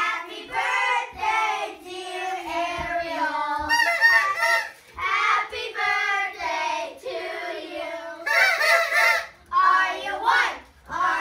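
A group of children singing together in high voices, holding notes about a second at a time with short breaks between phrases.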